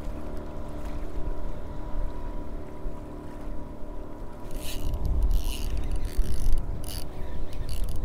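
Baitcasting reel being cranked to retrieve the line, a steady geared whir, over wind buffeting the microphone. A few sharp scratchy rustles come in around the middle.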